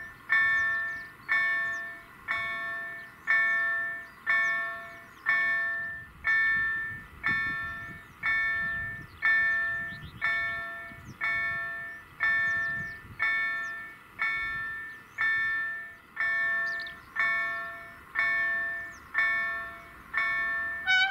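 Electronic bell of a Polish level-crossing warning signal (EDE-1 sounder with an EDG-2005 tone generator) striking steadily about once a second. Each strike is a bell-like chord that dies away. It is the sign that the crossing is closing or closed for an approaching train.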